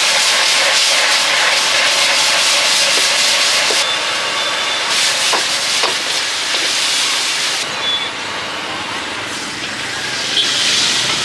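Food sizzling in a hot wok over a high gas flame: a loud, steady hiss with scattered light clicks. The hiss eases about two-thirds through and picks up again near the end.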